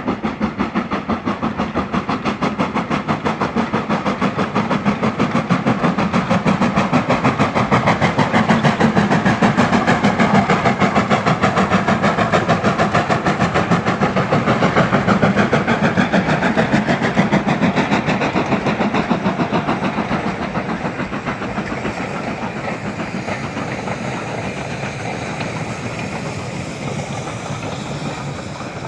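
LMS Black Five 4-6-0 steam locomotive 44871 working hard past, a rapid, even beat of chimney exhaust. It is loudest about halfway through and then fades as the train moves away.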